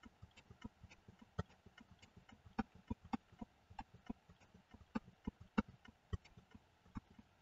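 Irregular clicking of a computer mouse and keyboard, a few sharp clicks a second, some louder than others.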